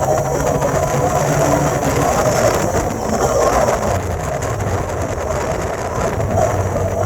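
Bajaj Dominar 400 motorcycle's single-cylinder engine running steadily, its exhaust note even throughout.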